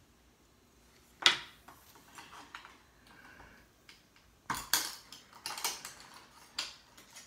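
Pliers gripping and prying the metal shield cover off a Kindle's circuit board to get at the processor: one sharp click about a second in, then a run of small metal clicks and scrapes over the last few seconds.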